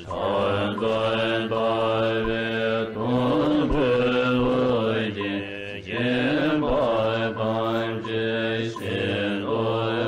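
Melodic Buddhist mantra chant: voices hold long sung notes in repeating phrases of a few seconds each.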